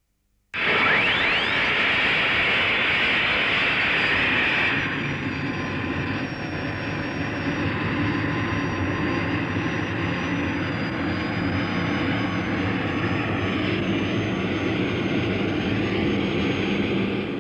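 Westland Wessex helicopter's gas-turbine engine starting: an abrupt loud hissing rush with a rising whine, which after about five seconds eases into a steady turbine whine as the rotor spins up.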